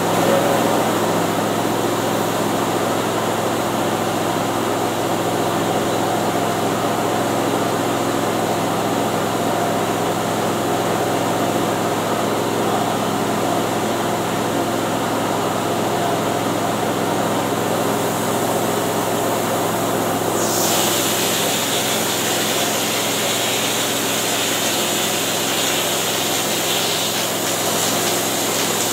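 Air compressor feeding a hopper texture spray gun runs steadily. About two-thirds of the way in, a sharp hiss of air joins it as the gun starts spraying ceiling texture.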